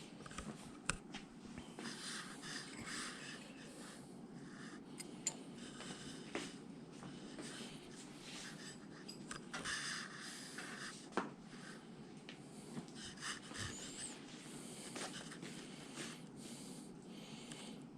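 Faint, irregular rubbing and wiping of small engine parts by hand, with a few sharp light clicks of metal parts being handled.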